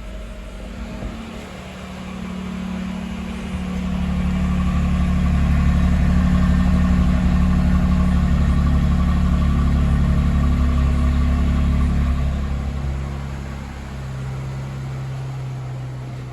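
2007 Chevy Malibu Maxx engine running just after a cold start, on fresh spark plugs and plug wires, at a raised idle. It runs louder for several seconds, then drops to a lower, steady idle about thirteen seconds in, as a cold engine's fast idle settles.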